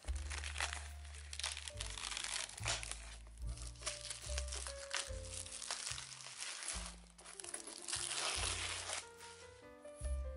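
Plastic wrapping crinkling and tearing as it is pulled off a bulletin board, in irregular rustling bursts over background music with a low bass line.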